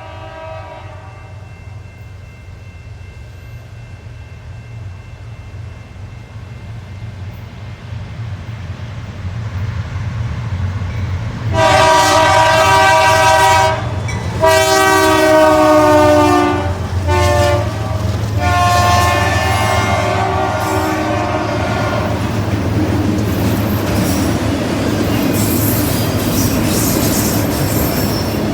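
Diesel freight locomotives approaching with the engine rumble building, then the multi-tone air horn sounding long, long, short, long, the standard grade-crossing signal. After the horn the locomotives and cars rumble past over the rails and the junction switch, with faint wheel squeal.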